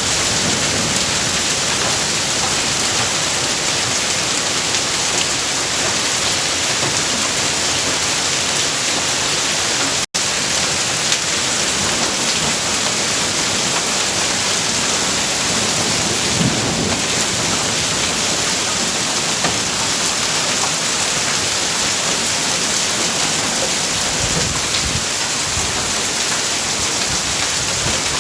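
Hailstones and rain pelting down in a dense, steady clatter-hiss. The sound cuts out for an instant about ten seconds in.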